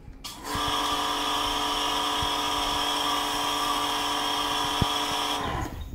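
Electric high-pressure washer's motor and pump running with a steady high whine, starting about half a second in and stopping near the end.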